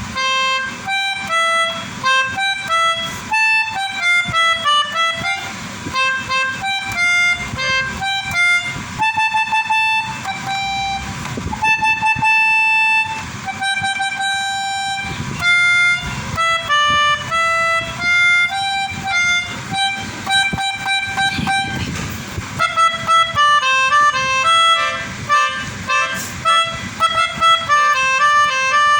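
Pianika (melodica) playing a quick melody of short, separate notes, imitating the tunes of an Indonesian 'telolet' Basuri bus horn.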